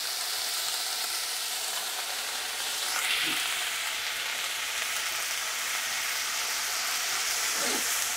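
Ginger-garlic paste frying in hot butter in a kadhai, a steady sizzle that swells briefly about three seconds in.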